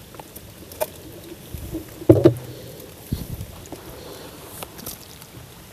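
Knocks, clicks and thumps from a fish and landing net being handled in the bottom of a small wooden boat, the loudest about two seconds in, over a steady light patter of rain.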